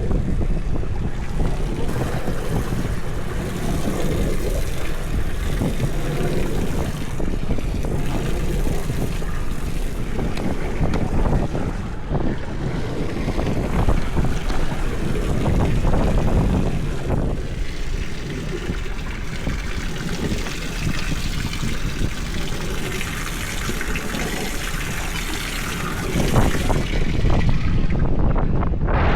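Wind buffeting the microphone on an open fishing boat at sea, a loud, uneven rush that rises a little near the end.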